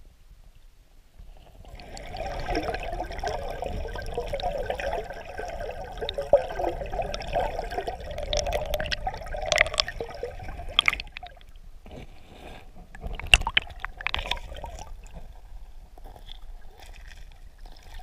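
River water heard underwater: a steady gurgling and bubbling of the current that starts about a second in, with scattered sharp clicks and knocks.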